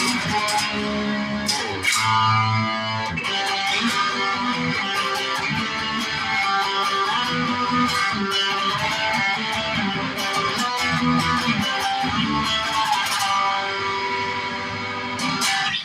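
Rock music led by electric guitar, with bass and a steady beat of sharp strokes, cutting off abruptly at the end.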